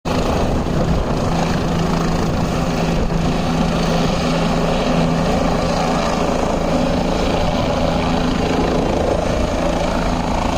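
Helicopter running steadily, its rotor and engine giving a constant loud whirring noise with a steady low hum underneath.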